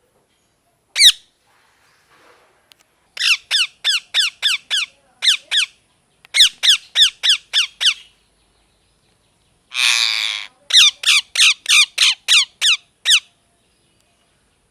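Ringneck parrot squawking: a single sharp call, then quick runs of shrill calls that each fall in pitch, about three a second, broken by short pauses. About ten seconds in comes one longer, harsh rasping screech, followed by another run of calls.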